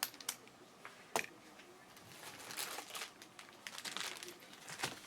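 Plastic wrapping crinkling and rustling as a box of trading cards is handled and opened, with a few sharp clicks near the start and a denser stretch of crinkling from about two seconds in.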